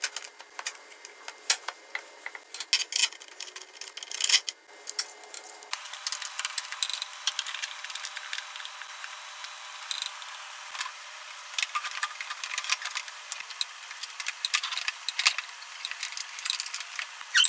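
Scattered clicks, clinks and knocks of hand tools and metal and plastic parts being handled while a small engine's carburetor and air cleaner housing are fitted.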